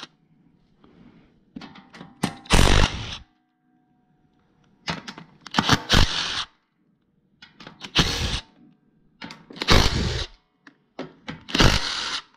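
DeWalt cordless driver spinning out the side-cover bolts of a 459cc Predator engine. It runs in about five short bursts, one bolt at a time, with small clicks between them.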